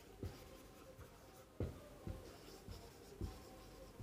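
Marker pen writing on a whiteboard: a series of short, faint strokes, roughly one every half second, as letters are written.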